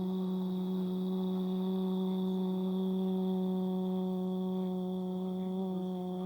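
Emergency Alert System attention signal: one steady, buzzy electronic tone with a low pitch and many overtones, held without change. It marks that a spoken emergency alert message is about to follow.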